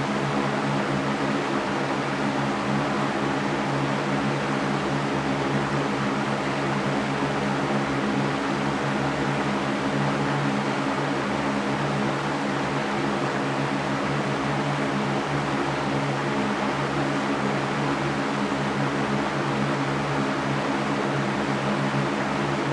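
Electric fan running steadily: an even rush of moving air with a low motor hum underneath.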